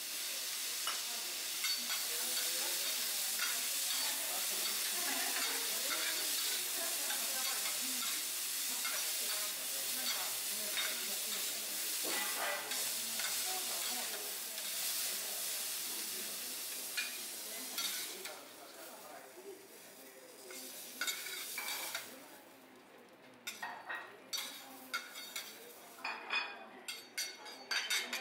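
Food sizzling on a teppanyaki iron griddle, with short clicks and scrapes of metal spatulas. The sizzle dies away about two-thirds of the way through, leaving scattered clicks.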